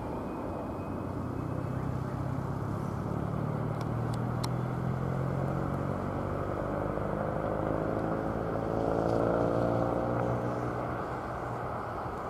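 Jet engine noise from a departing Airbus A320-family airliner's CFM56-5B turbofans: a steady, distant rumble with a slowly shifting, phasing tone. It grows a little louder toward about nine seconds in and then starts to fade.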